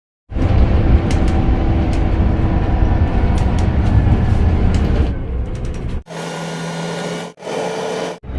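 A bus running: a loud, steady low engine rumble with scattered clicks and rattles. About six seconds in, the sound cuts off abruptly to a quieter, steadier hum, and it is cut off twice more near the end.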